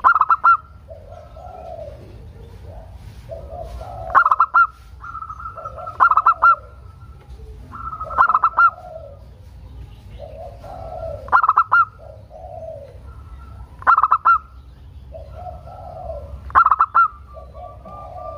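Zebra dove (local perkutut) cooing: a phrase of quick staccato coos with lower trailing notes, repeated about every two to three seconds, seven times.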